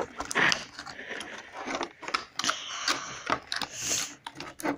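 Hot Wheels blister pack being worked open by hand: plastic and cardboard crackling and scraping in irregular bursts, with sharp clicks and knocks from handling.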